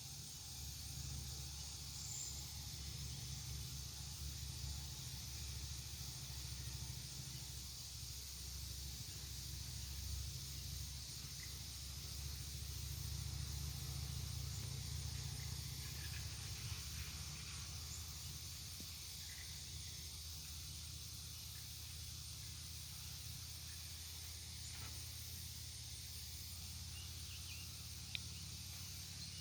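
Outdoor background noise: a steady high hiss over a low, wavering rumble, with a single faint click near the end.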